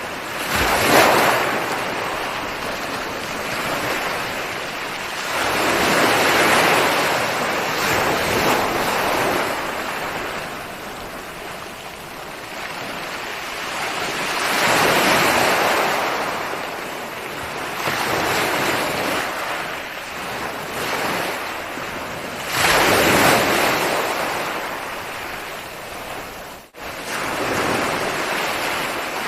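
Ocean waves breaking on a shore: surf that swells and ebbs, with a louder wave crashing every few seconds. There is a sudden brief drop-out near the end.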